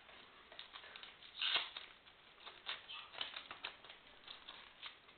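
Light clicks and rustles of a laptop power adapter and its cord being handled, with one louder scraping rustle about a second and a half in.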